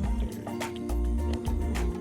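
Background music only: held tones over deep bass notes and light percussive ticks, with no barking.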